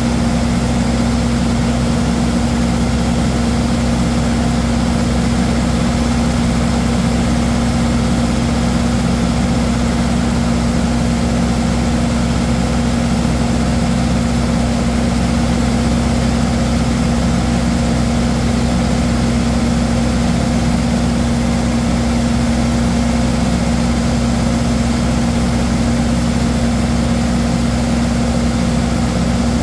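Ship's machinery running: a loud, steady drone with a strong low hum at one pitch.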